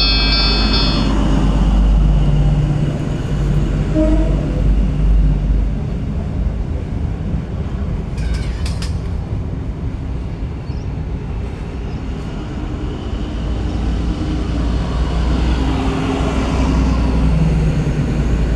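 NSW TrainLink XPT diesel train passing at speed, a steady low rumble of the power car and carriages rolling by. A brief high-pitched ringing tone sounds right at the start and a few sharp clicks come about halfway through. The rumble eases off and then rises again near the end.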